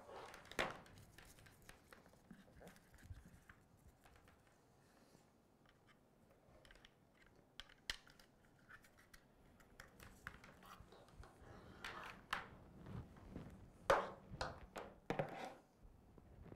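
Scattered clicks, knocks and rustles of cables and a power adapter being handled and plugged in on a tabletop. The loudest knocks come in a cluster near the end.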